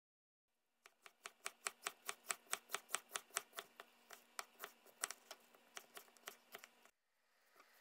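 Kitchen knife slicing an onion on a plastic cutting board in a quick, even rhythm of about five strokes a second, each stroke a light knock on the board. The chopping cuts off suddenly about seven seconds in.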